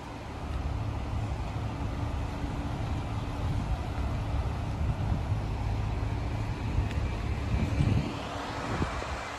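Heavy vehicle engine running steadily, a low rumble with a constant hum, growing louder toward the end.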